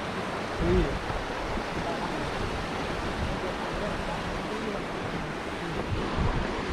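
River water rushing steadily, an even wash of noise, with a couple of low thumps of wind or handling on the microphone, one near the start and one near the end.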